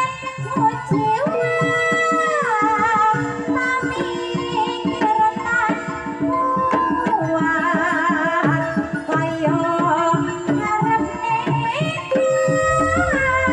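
Sinden, a Javanese female vocalist, singing a long, ornamented line with wavering vibrato over a gamelan: steady ringing tones from the bronze instruments and rapid hand-drum strokes. A deep low boom comes in near the end.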